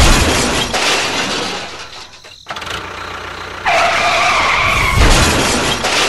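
A loud crash with a shattering noise as a toy train collides with a toy cart, fading over about two seconds. A little past halfway a wavering tone is held for about a second, and a second crash-like burst comes near the end.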